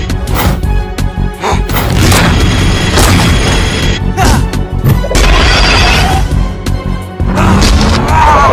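Cartoon fight soundtrack: background music with a rapid series of impact hits and booms.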